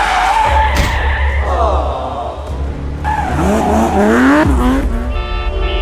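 Car engine revving and tyre-skid sound effects, the pitch sweeping up and down, with a run of rising revs in the second half over a steady low rumble.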